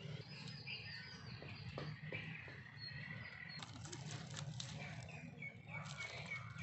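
Small birds chirping in short, quick repeated notes. Dry sticks and twigs crackle and rustle as they are pushed into a small open wood fire, about halfway through and again near the end.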